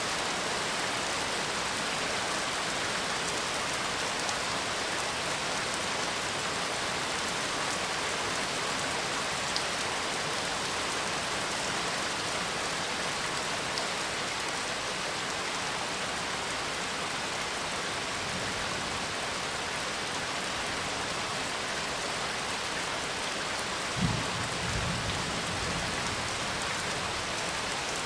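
Steady rain falling, with one low thunder rumble that starts with a thump near the end.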